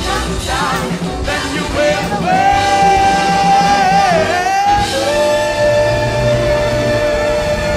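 Live big band music with a male lead vocalist belting two long held notes with vibrato, the second a little lower, over the band and backing singers.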